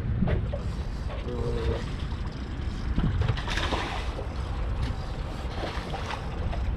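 Scattered small mechanical clicks and rattles over a steady low rumble of wind on the microphone.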